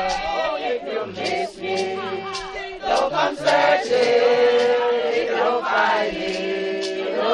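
A crowd singing a gospel hymn together, voices holding long notes.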